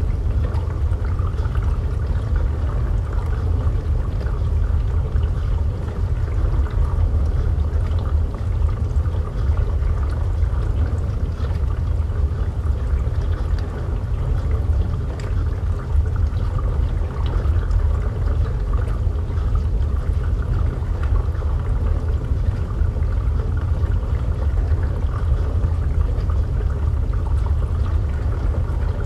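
Steady water sound with a low rumble, as heard underwater, unchanging throughout.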